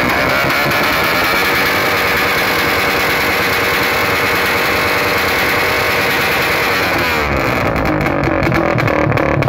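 Suzuki Raider 150 carb single-cylinder engine on an open pipe, running loud at high revs. About seven seconds in the revs drop and a quick string of sharp exhaust pops begins: the rapid-backfire relay cutting the ignition.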